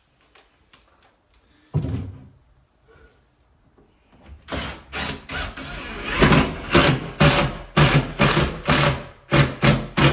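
Cordless drill driving a screw through the vanity's back into a wall stud, run in a quick series of short trigger bursts from about four seconds in. One short burst about two seconds in.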